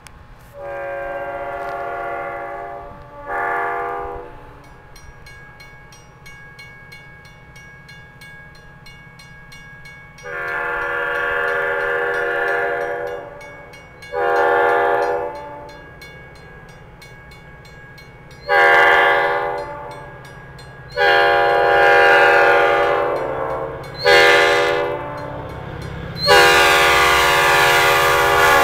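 An EMD F40PH diesel locomotive's air horn sounding eight blasts, long and short, louder each time as the train approaches, the last one held as it arrives. Under the horn runs the rumble of the diesel engine and the train, growing near the end.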